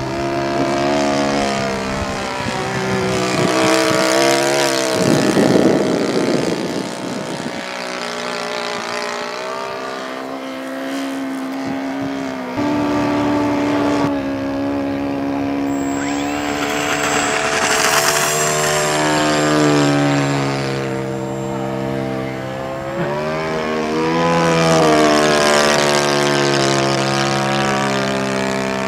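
Saito FA-120 four-stroke glow engine of a model Stampe biplane running in flight, its mixture set a little too rich. The engine note grows louder and its pitch rises then falls as the plane passes close, about three times.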